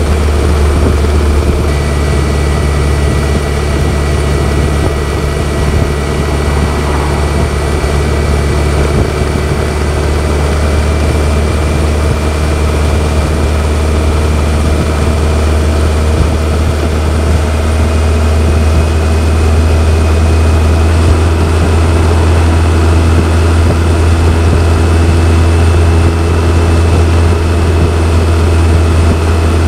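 BMW K1100LT motorcycle's inline four-cylinder engine running steadily on the move, a constant low drone with no marked revving or gear changes.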